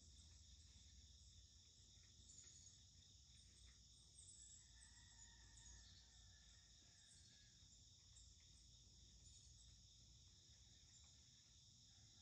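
Faint, steady chorus of insects singing, with a few brief high chirps above it.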